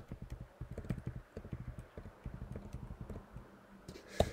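Typing on a computer keyboard: a steady run of quick, soft key taps, several a second.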